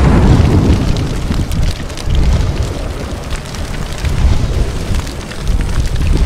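Explosion sound effect dying away into a deep rumble with crackling fire, swelling up again a few times.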